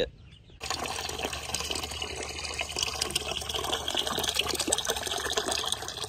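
Water pouring and splashing in a steady rush, full of small splash ticks. It starts suddenly about half a second in.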